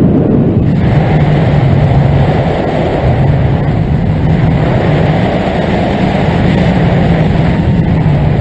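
Loud, steady wind rush and rumble of the airflow over a camera microphone in paraglider flight.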